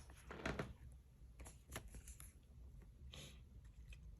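Faint rustling and flicking of Pokémon trading cards being handled, with a few soft ticks scattered through.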